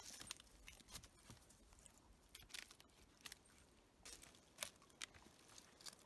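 Faint, scattered crackling and rustling of dry twigs and forest litter, a few sharper snaps among them.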